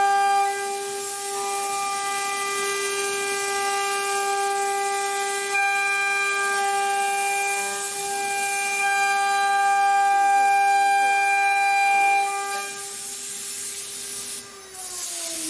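CNC router's 3 kW water-cooled spindle whining steadily at high speed over a hiss as its bit carves a relief into a board. About a second before the end the whine starts to fall in pitch as the spindle slows down.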